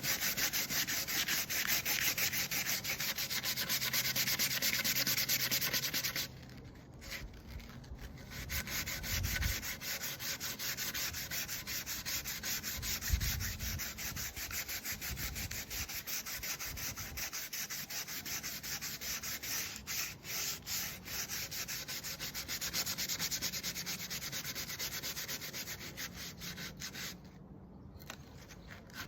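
Sandpaper rubbed rapidly back and forth over wood by hand: a steady, fast rasping of hand sanding. It stops briefly about six seconds in and again near the end, with a couple of low thumps in between.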